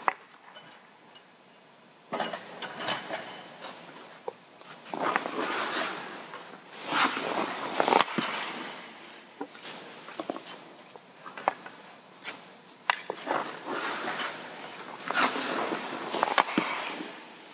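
Hockey goalie's skate blades scraping and carving on ice in repeated hissing pushes and slides, broken by several sharp knocks of stick and puck.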